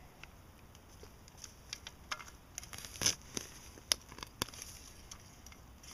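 A digging tool cutting into soil thick with leaves: scattered crunching and crackling of dirt and debris, with a few sharper knocks about three and four seconds in.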